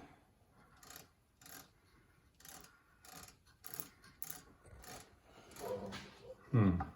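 Short scrapes and clicks of metal gearbox parts being handled and worked into place as a replacement part is fitted into the greased gearbox of a KitchenAid Pro 550 HD stand mixer. A brief voice sound comes near the end.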